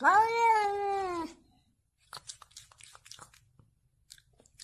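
A domestic cat gives one long, loud meow that rises at the start and falls away at the end, lasting about a second and a half. Faint scattered clicks and rustles follow.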